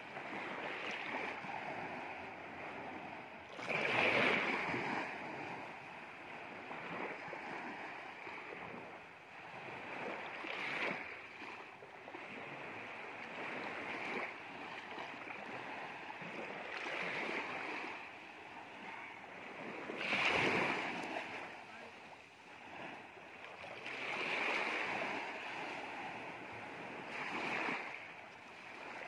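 Small waves washing up on a sandy beach, a soft hiss that swells and fades every few seconds as each wave runs in.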